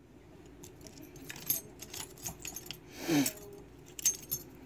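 Small metal clicks and clinks of a disassembled pin-tumbler lock's housing and plug being handled and fitted together, with one longer, louder noise about three seconds in.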